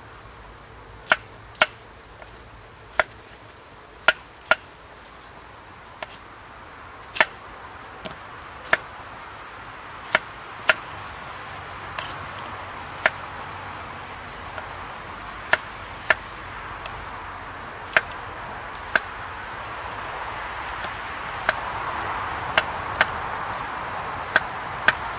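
Kitchen knife chopping peeled potatoes on a wooden chopping board: sharp single knocks of the blade hitting the board, irregularly spaced about one a second, over a steady background hiss that grows louder near the end.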